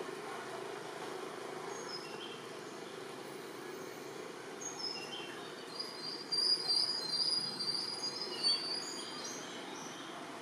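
Small birds chirping in short, high notes, busiest from about five to nine seconds in, over a steady background rumble.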